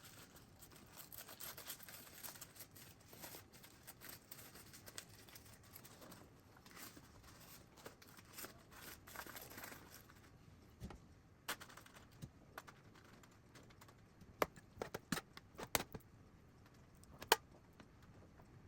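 Soft rustling and crinkling of something being handled. Later come a quick run of sharp clicks and taps, then one louder tap.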